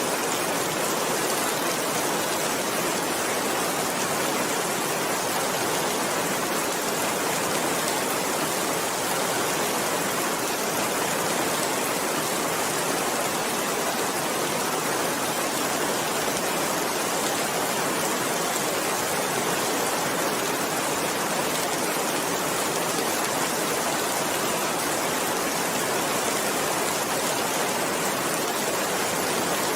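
Steady rain falling, an even hiss without pause or change.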